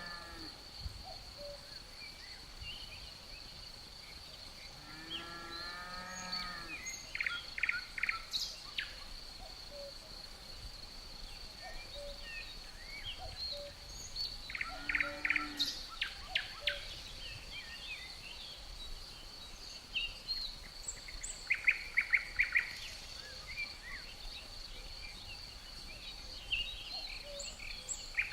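Birds calling and chirping in short runs of quick notes, with two lower, fuller calls among them, over a steady high-pitched insect drone.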